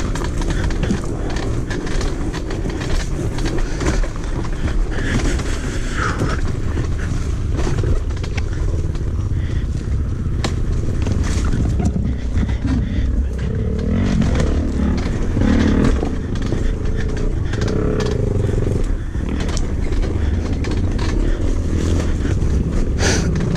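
Dirt bike engine running as the bike is ridden over a rough, rutted trail, with frequent knocks and scrapes from the ground and brush. The engine note rises briefly a little past the middle.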